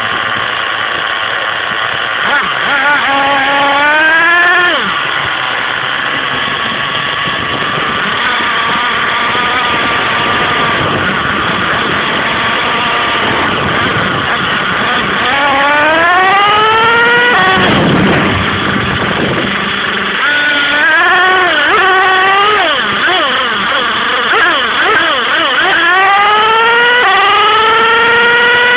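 Racing kart engine heard onboard while lapping: it rises in pitch each time it accelerates out of a corner, then drops when the throttle is lifted, several times over, with steady wind and track noise underneath.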